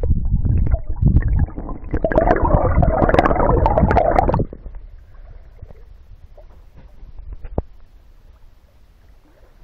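Muffled rumbling and gurgling of river water around a camera microphone held underwater, with scattered clicks and knocks. About four and a half seconds in it cuts off suddenly as the camera leaves the water, leaving a faint open-air river hush.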